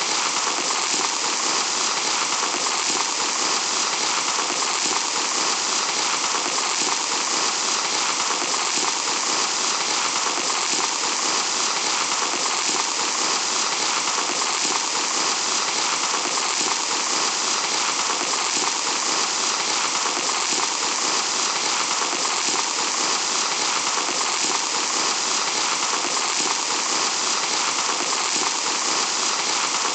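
Fine sand pouring in a steady, unbroken hiss.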